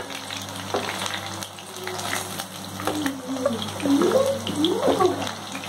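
Hot oil sizzling in a frying pan as fried chicken kebab pieces are lifted out with a metal slotted spatula, with scattered clicks and scrapes of the spatula on the pan. The bubbling has died down enough that the kebabs are taken as cooked.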